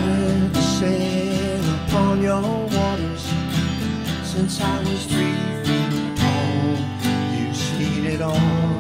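Two guitars playing together, an archtop guitar and an acoustic guitar: a picked melody line moves over strummed chords.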